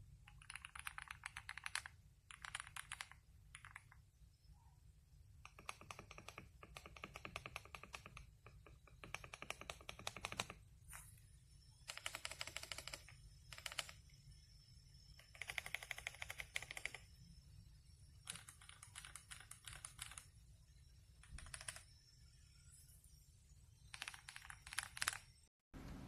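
Typing on a Feker IK85 wireless hot-swap mechanical keyboard with PBT keycaps: quick runs of keystroke clicks in bursts of a second or two, separated by short pauses.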